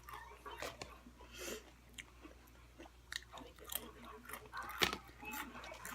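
A person chewing food close to the microphone: soft wet mouth sounds and small crunches, with one sharper click a little before the end.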